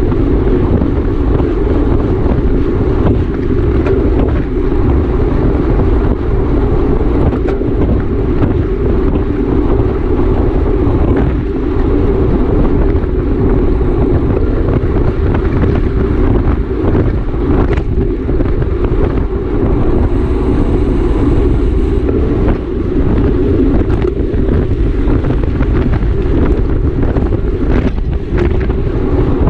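Wind rushing over the microphone of a camera carried on a racing bicycle at speed: a loud, steady noise that is mostly low-pitched, with no pauses.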